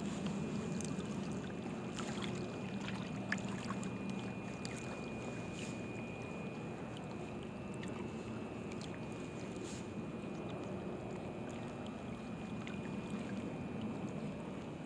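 Small wind-driven waves lapping at a lake bank, with steady wind noise and a few faint clicks.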